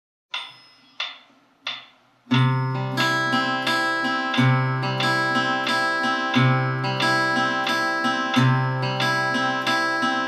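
Steel-string acoustic guitar played fingerstyle. Three short clicks about two-thirds of a second apart come first, then a fingerpicked broken-chord pattern of the kind used in 3/4 and 6/8 time: a bass note struck about every two seconds, with the higher strings picked in between.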